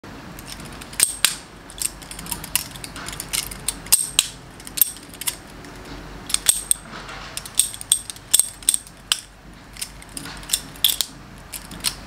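Balisong (butterfly knife) with metal skeletonized handles being flipped and tossed: sharp metallic clicks and clacks of the handles and pins swinging open and shut, coming irregularly, a couple to a few each second.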